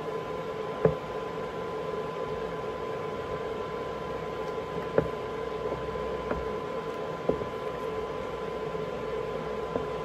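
Wooden spoon stirring a thick soap mixture in a stainless steel pot, knocking against the pot a few times, over a steady appliance hum.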